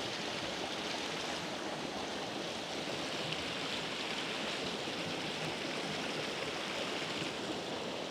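A small mountain creek flowing, a steady rushing of water.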